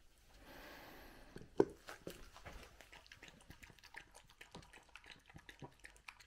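Small white terrier lapping a thin dog smoothie from a bowl: quick wet lapping clicks, about three or four a second, starting after a single knock about a second and a half in.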